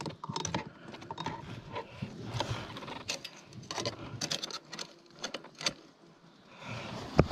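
A bicycle being handled: irregular clicking and rattling of its chain and metal parts, with one sharp knock near the end.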